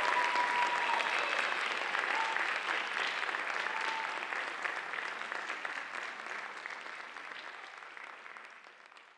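Audience applauding in a theatre, a steady clapping that slowly dies away over the last few seconds.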